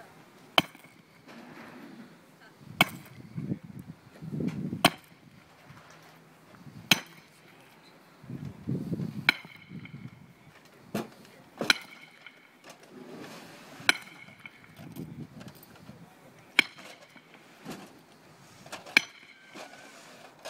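Heavy hammer striking a steel tent stake to knock it loose from the ground. About ten sharp metallic clanks come roughly every two seconds, each with a brief ring.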